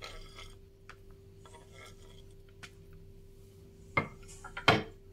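A knife scraping sliced chicken liver and gizzard off a wooden cutting board into a plate, with soft scrapes and rustles, then two sharp knocks near the end.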